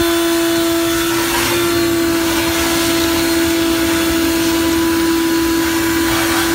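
Shop vac running steadily with a constant motor whine and airflow hiss, its hose vacuuming up water and broken glass from a boat's ski locker.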